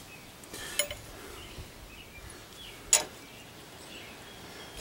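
Metal tools or ball joint press parts clinking as they are handled: a small clink about a second in and a sharper, louder one about three seconds in.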